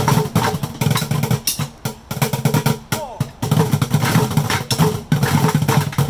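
A group of drumsticks beating on orange plastic five-gallon Home Depot buckets, playing together in runs of quick strokes with short breaks between them.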